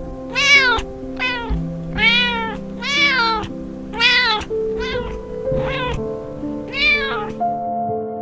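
A cat meowing over and over: about eight short, high meows, each rising then falling in pitch, over soft background music. The meows stop near the end.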